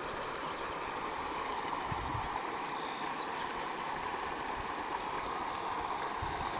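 Shallow river water running steadily over stones and pebbles, a continuous even rushing.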